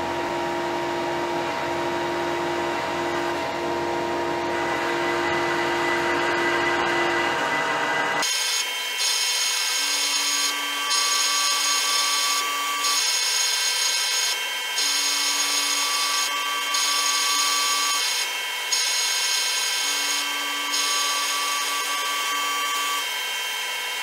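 CNC machining center drilling a metal plate: the spindle and drill cutting, with steady whining tones. About 8 seconds in the sound changes to a repeating cycle that breaks off briefly every couple of seconds.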